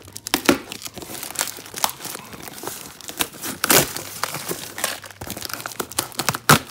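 Plastic-taped parcel crinkling and crackling as hands grip it and a knife cuts into the wrapping, with irregular crackles and a few sharp louder cracks, about half a second in, near the middle and near the end.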